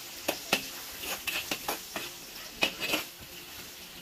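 A utensil knocking and scraping against a cooking pan in short, irregular strokes over the first three seconds, with a faint sizzle of frying food underneath.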